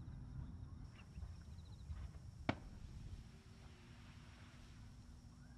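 A lull in a fireworks display: faint low rumble fading out, with one sharp distant pop about halfway through, then near silence.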